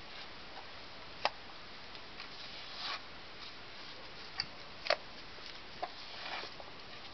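Scattered sharp clicks and two short scrapes over a steady hiss, from hand work applying cement mortar to the edge of a concrete step with a small trowel.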